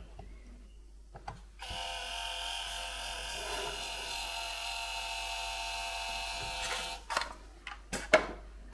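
Dymo LetraTag handheld label maker printing a label: after a couple of key clicks its small motor runs with a steady whine for about five seconds as the tape feeds out, then stops and a few sharp clicks follow near the end.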